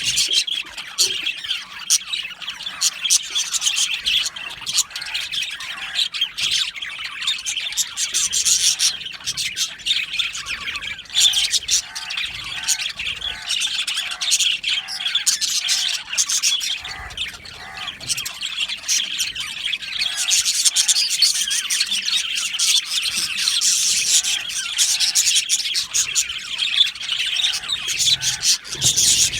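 A flock of budgerigars chattering and chirping continuously, many birds at once, with sharp squawks mixed into the warbling.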